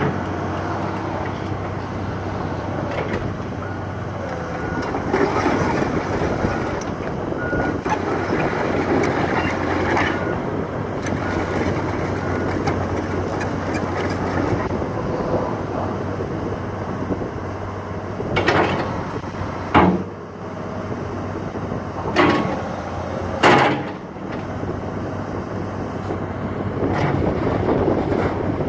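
Cat 315CL hydraulic excavator running, its diesel engine droning steadily while the boom and bucket are worked up and back down. The engine sound swells under hydraulic load for several seconds. Four short, loud bursts come in the last third.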